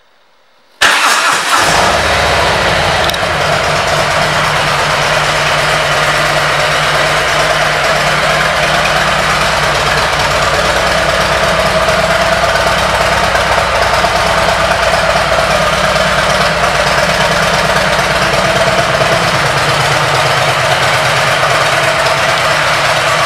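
A Harley-Davidson Milwaukee-Eight 107 V-twin, breathing through aftermarket Rinehart exhaust pipes, starts about a second in and then idles steadily.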